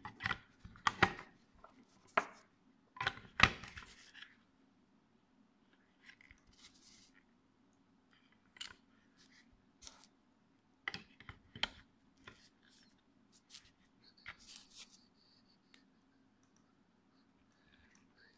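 Cylindrical Li-ion cells knocking and clicking against a 3D-printed plastic battery box as they are handled and pushed into place: a quick run of sharp knocks in the first few seconds, then scattered lighter clicks. A faint steady hum lies underneath.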